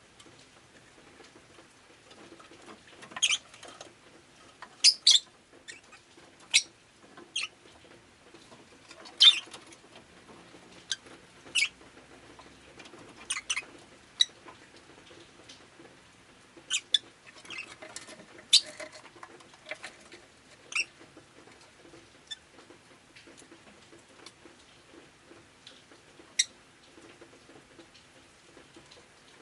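Rosy-faced lovebird giving short, sharp high chirps at irregular intervals, often in quick pairs, thinning out in the last third with one last call near the end.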